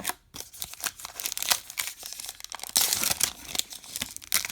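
A pack of baseball cards being torn open, its wrapper crinkling and crackling in irregular bursts.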